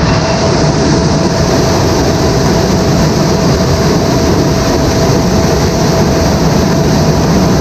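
Heavy farm machinery running loudly and steadily, with a constant whine over a low hum.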